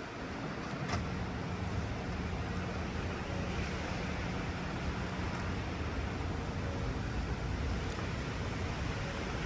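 New York City subway 4 train running, a steady rumble with a sharp click about a second in.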